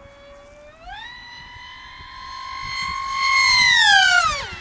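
Twin electric motors and propellers of an RC Me 163 model plane whining at high speed. The pitch rises about a second in, the whine grows louder as the plane closes in, then drops sharply in pitch as it flashes past.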